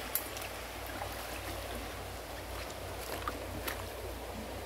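A shallow river running over stones, a steady rush of water, with a few faint clicks near the start and about three seconds in.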